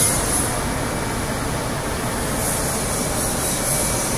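A plastic bottle crusher and its inclined feed conveyor running, a steady even mechanical noise with no distinct impacts.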